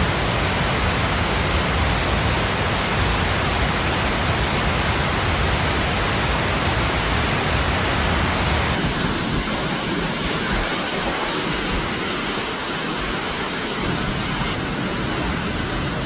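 Steady rushing noise of heavy rain and flowing water. About halfway through, the deep rumble drops away, leaving a thinner hiss with a faint high steady whine.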